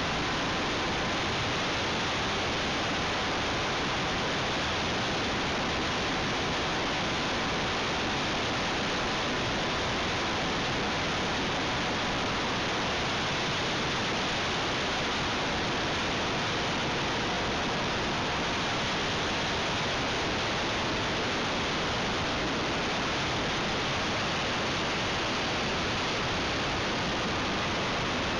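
Steady, even rushing hiss of airflow and propeller noise on the microphone of a camcorder carried aboard an RC aircraft in flight, with a faint steady whine underneath.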